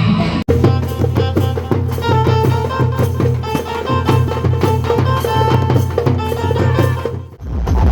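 Music with drums and percussion on a steady beat. It cuts out for an instant about half a second in, then dips sharply near the end as a different passage begins.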